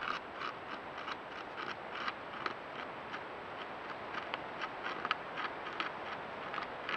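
A beaver gnawing into a thick aspen trunk, its incisors scraping off wood in sharp ticks about three times a second over a steady hiss.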